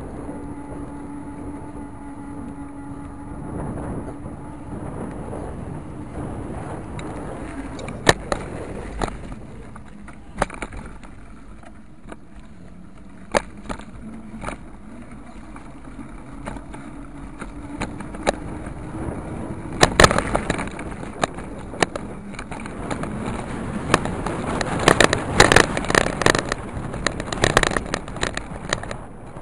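Wheels rolling over pavement, heard from a camera mounted low on the ride. There is a steady hum for the first several seconds, sharp knocks as the wheels hit cracks and bumps, and a dense rough rattling over coarse asphalt near the end.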